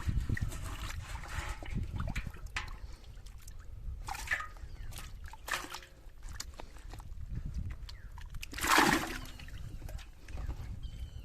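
Water sloshing and splashing, with a few short splashes and one louder splash near the end.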